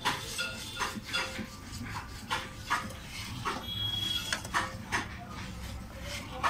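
Long metal stirring rod scraping round and round a large karahi of milk as it heats, a steady run of scrapes about three a second.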